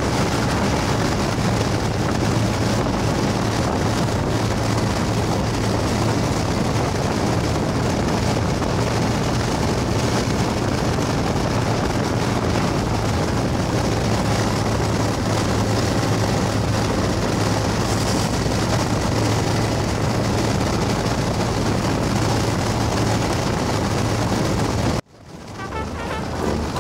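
Honda Transalp XL600V's V-twin engine holding a steady low hum at cruising speed, under loud wind rush on the microphone. Near the end it cuts off suddenly and music begins.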